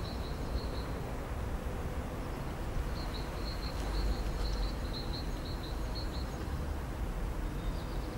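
Outdoor background: a steady low rumble with an even hiss, and a run of quick high chirps from a small bird from about three to six seconds in.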